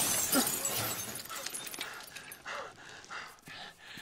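Breaking window glass fading away over the first second, then short grunts, heavy breathing and scuffling of two men fighting.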